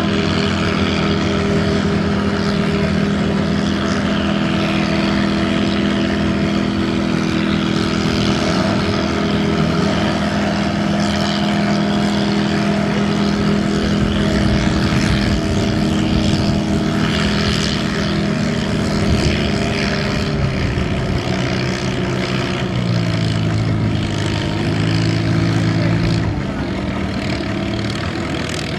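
Oliver farm tractor's engine working hard under load while pulling a weight-transfer sled, running at a steady pitch, then dropping in pitch about three-quarters of the way through as the growing sled weight pulls it down, and easing off near the end.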